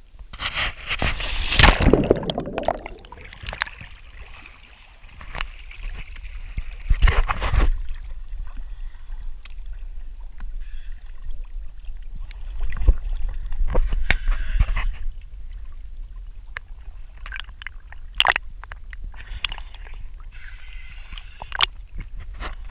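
A scuba diver drops from a boat into the river with a loud splash at the start. Then water sloshes and gurgles around the camera at the surface, with several more short splashes.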